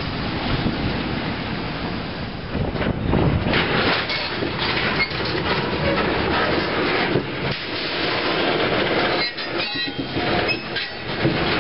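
Freight train of tank cars and covered hopper cars rolling past close by: a steady rumble and clatter of steel wheels over the rails, with a few short high wheel squeals near the end.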